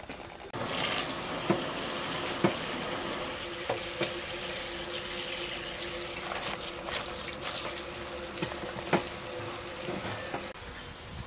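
Kitchen tap running water onto leafy greens in a plastic colander in a stainless steel sink, starting about half a second in and stopping near the end. A few sharp knocks come through as the greens and colander are handled.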